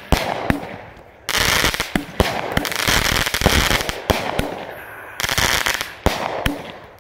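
A Mo Better 11-shot 200-gram fireworks cake repeater firing: about four sharp shell reports, each followed by a few seconds of crackling hiss from the bursting stars.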